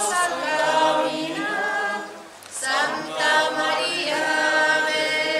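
A group of voices singing a hymn unaccompanied: one sung phrase, a brief breath pause about two seconds in, then a second long phrase of held notes.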